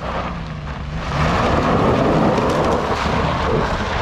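A Jeep Grand Cherokee's engine runs under power as its wheels spin on loose gravel in a burnout. The engine note rises slightly, then about a second in it is swamped by a loud, steady hiss and spatter of spinning tyres and flung gravel.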